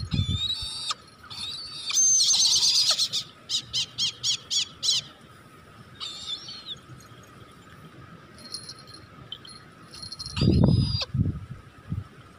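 Brahminy kite calling: high, wavering calls for the first few seconds, then a quick run of about six short calls. A few low thumps come near the end.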